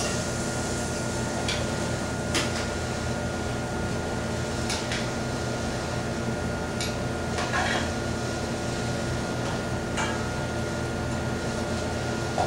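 Steady machine hum of the room's ventilation or refrigeration with a faint high whine, broken by a handful of sharp clinks and taps of utensils and plates being handled at the counter.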